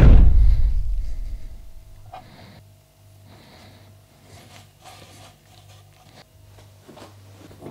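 A deep low boom swells at the start and dies away over about two seconds. After it comes the faint, intermittent rubbing of soft bread dough being rolled into balls by hand on a plastic cutting board, over a low steady hum.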